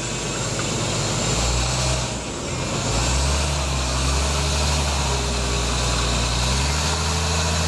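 Cab-over moving box truck's engine running as the truck drives up close, getting louder as it nears, its low note shifting pitch a few times.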